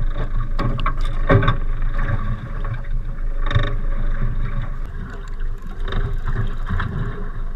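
Steady low hum of a small boat, with scattered knocks and thumps from fishing gear being handled on deck, the loudest about a second and a half in and again in the middle.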